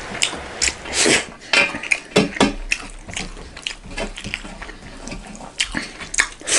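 Wet, smacking mouth sounds of close-up eating: rice and goat curry chewed and eaten by hand, with fingers scraping and tapping on a metal plate. It comes as many short, irregular clicks and smacks.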